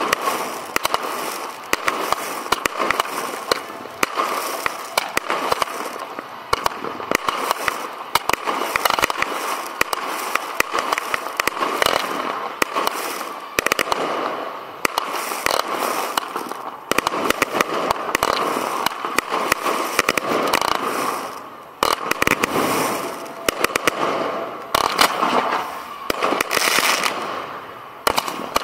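Professional fireworks display heard from right at the launch site: a dense, continuous barrage of shots firing and bursting, many sharp bangs overlapping with crackling over a steady hiss. The barrage eases off briefly near the end.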